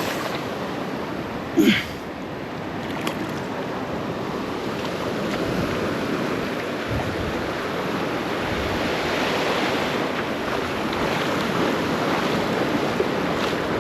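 Ocean surf washing in along the beach, swelling louder partway through, with wind buffeting the microphone. A brief loud voice-like sound comes about two seconds in.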